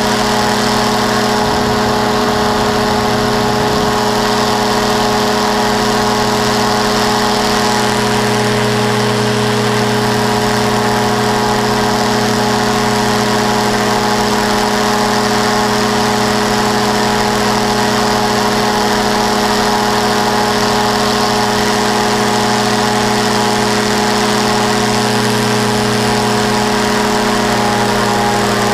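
Powered parachute's engine and propeller running steadily in flight, heard close up from the airframe: a constant, even engine hum that holds one pitch.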